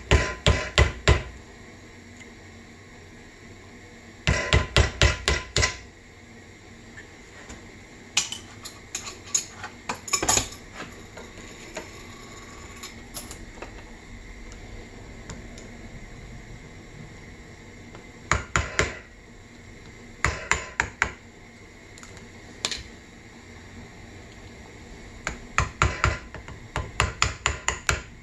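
Sharp metallic tapping in quick runs of four to seven taps, repeated several times with pauses between, as a small brass part clamped in a steel bench vise is worked with a screwdriver held upright against it.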